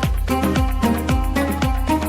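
Background music with a steady, upbeat beat and a bass line.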